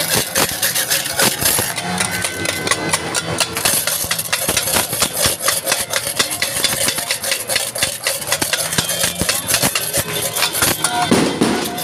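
A rapid, continuous crackle of firecrackers going off, many sharp pops a second, with louder cracks scattered through.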